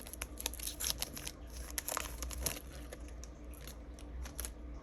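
Plastic wrapper of a trading card pack being torn open and crinkled by hand, a run of irregular sharp crackles.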